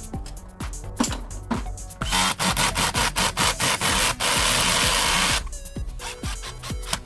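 Electronic background music with a steady beat. About two seconds in, a loud rasping cutting-tool sound comes in over it, first in quick strokes and then steady, and stops suddenly after about three and a half seconds.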